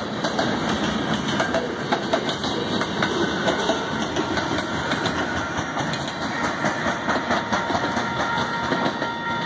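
Short freight train rolling past at speed, boxcars, covered hoppers and a bilevel passenger coach going by, steel wheels clacking over the rail joints in a dense, steady stream of clicks. A faint steady tone comes in near the end.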